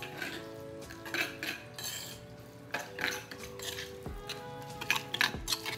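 Metal spoon stirring olive oil into basil pesto in a stone mortar, scraping and clinking against the stone, the clinks coming quicker near the end. Soft background music underneath.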